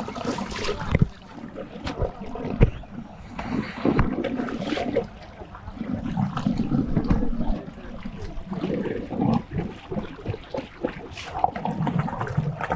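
Water splashing and sloshing as people work in shallow water, with a few sharp knocks.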